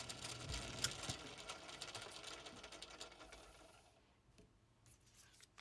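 Plastic LEGO gears driven by a half-horsepower furnace blower motor, meshing and clicking as a paper strip is fed through them. The running sound fades away about three to four seconds in.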